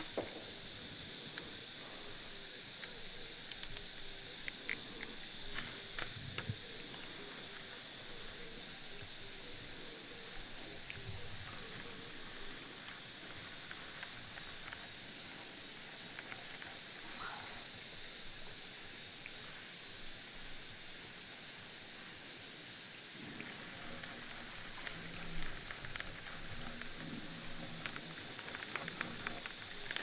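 Insects chirring without a break: a steady, high-pitched buzz with a fast even pulse. A few faint clicks and soft knocks sound over it, mostly near the end.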